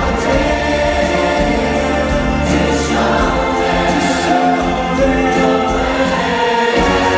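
Large church choir singing a gospel worship song, with the band playing under sustained chords and a steady bass line.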